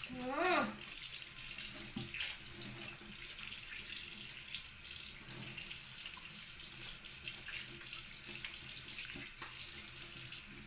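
Tap water running steadily into a sink, with a few light knocks. About half a second in there is a brief rising-and-falling vocal sound.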